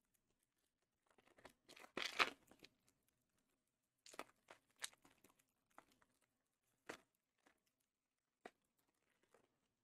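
A foil trading-card booster pack being torn open, the wrapper crinkling and ripping. The loudest tearing comes about two seconds in, followed by fainter scattered crinkles and clicks as the opened wrapper is handled.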